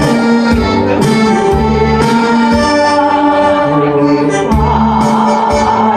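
Korean trot music played live on an electronic keyboard: an accordion-like melody of long held notes over a pulsing bass line.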